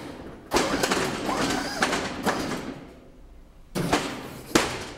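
Hiniker snow plow's electric-hydraulic pump running in two bursts as the blade swings to a new angle, each starting suddenly with a click, the second ending in a sharp knock about four and a half seconds in.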